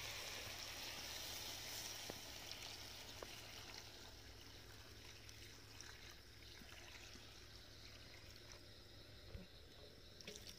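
Water poured from a kettle into a hot iron kadai of frying pork curry, a faint pouring hiss that fades after about four seconds as the gravy fills the pan.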